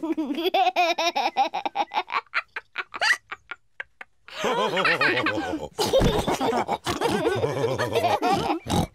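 Cartoon characters laughing in quick, pulsing bursts. There is a short pause about three seconds in, then several voices laugh together.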